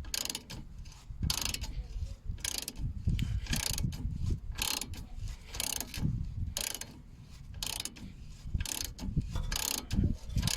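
Socket wrench ratcheting in repeated short strokes, about a dozen bursts of clicking, as a 19 mm nut is run off a car's anti-roll bar link.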